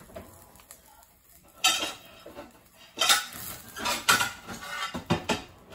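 Metal kitchen utensils clinking and clattering against pots and dishes: several separate sharp clinks with brief ringing, starting about a second and a half in and bunched in the second half.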